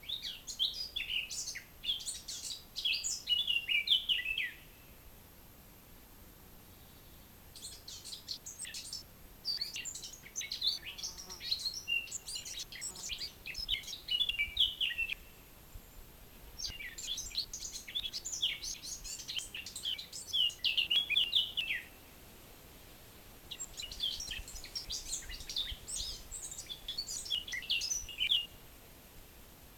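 A songbird singing long, rapid, jumbled phrases of high notes in four bouts separated by pauses of one to two seconds, each bout ending on lower notes.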